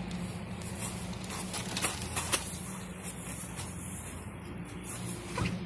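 Steady low hum under outdoor background noise, with a few sharp knocks: two close together about two seconds in, and one near the end.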